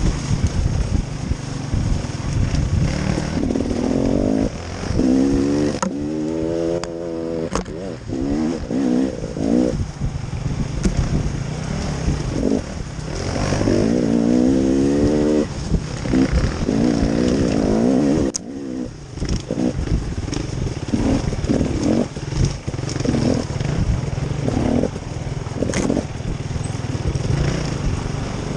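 A small off-road vehicle's engine running on the move, revving up and down again and again, with scattered knocks and rattles over rough ground.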